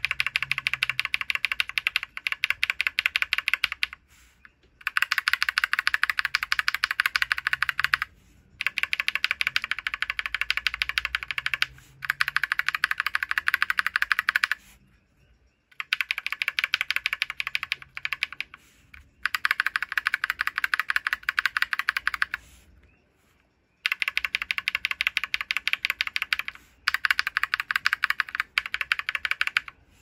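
NovelKey Cream linear mechanical keyboard switches being pressed rapidly through keycaps in a bare plate: fast runs of keystroke clicks, several a second, each run lasting a few seconds with short pauses between, about eight runs in all.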